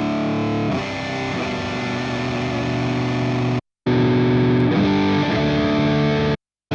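Distorted electric guitar played through a Fractal Audio FM9 amp-modeler preset, held chords and notes ringing with effects. The sound cuts out abruptly for a moment about halfway through and again just before the end.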